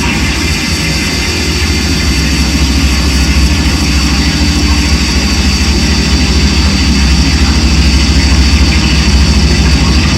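Loud live drone-noise music: a dense, continuous wall of electronic noise over a deep steady rumble, with held droning tones. It swells a little louder partway through.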